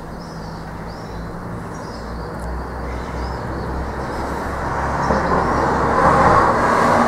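A passing motor vehicle: engine and road noise growing steadily louder, loudest near the end, over a low steady hum.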